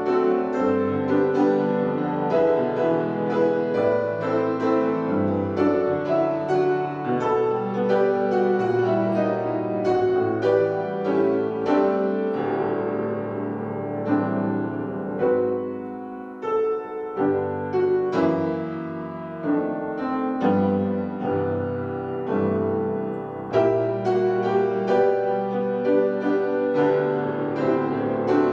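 Solo piano or keyboard music, played continuously with many notes sounding together.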